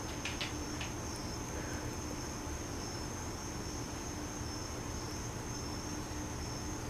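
Quiet, steady room noise: an even hiss with a faint high-pitched whine and a low hum, and a few faint clicks just under a second in.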